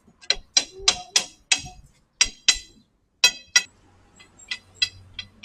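A quick series of sharp metallic clinks and taps, about a dozen, each with a short ringing tone: metal tools or parts knocking together. A faint low hum comes in for the last second and a half.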